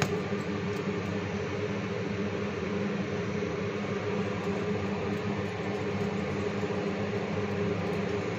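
Steady mechanical hum with an even hiss, the sound of a fan motor running without change.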